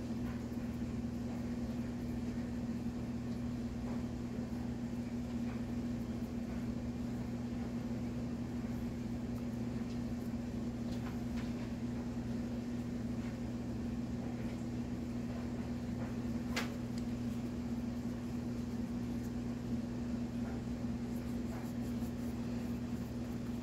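Steady low hum, with a few faint light taps and one sharper click about two-thirds of the way through.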